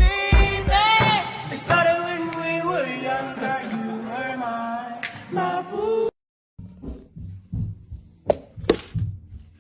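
Music with a sung vocal melody over a beat, which cuts off suddenly about six seconds in. After a short silence come quieter irregular sounds, with two short, sharp sounds near the end.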